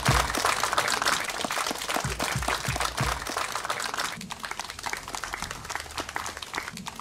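Audience clapping, thinning out and dying down about four seconds in, with a few low thumps under it in the first three seconds.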